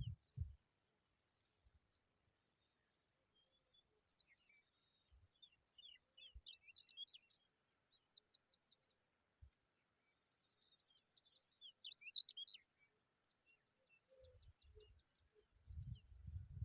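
Faint, high-pitched bird chirps come in quick runs of several notes every second or two, with some scattered varied notes in between. Low, muffled thumps sound at the start and again near the end.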